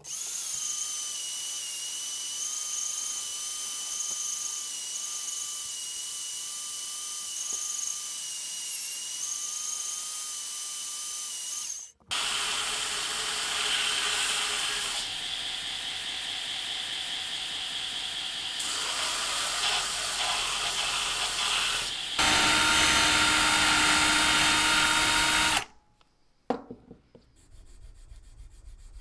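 Electric shop tools in turn: a steady high motor whine for about twelve seconds, then a belt grinder sanding a wooden knife handle, then a louder stretch of machine running with a steady hum. Near the end it drops to quiet, soft rubbing from hand sanding.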